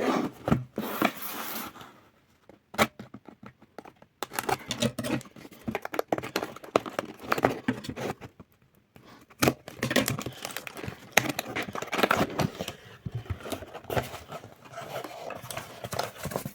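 A keyboard box being unpacked by hand: packaging rustling and crinkling, with clicks and scrapes, in stretches broken by two short pauses.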